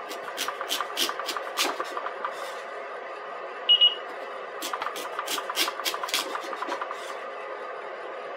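Chef's knife slicing a raw sweet potato into hasselback cuts, each stroke ending in a quick click as the blade meets the wooden spoons and cutting board; two runs of rapid knife taps over a steady background hum. About midway, between the two runs, an appliance gives two short, loud electronic beeps.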